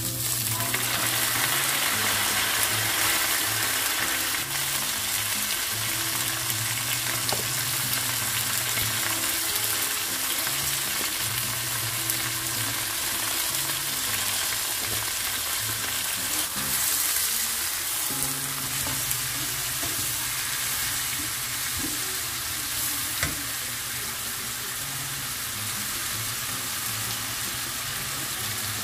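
Water spinach and pork belly frying in a hot wok, a steady sizzling hiss that is loudest just after the greens go into the oil and slowly eases off, with the food being stirred.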